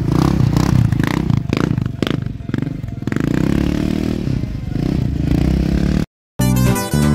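Sport quad's engine revving hard, its pitch rising and falling as it spins donuts on dirt and grass, with rough clattering noise. Near the end the sound cuts out briefly and guitar music starts.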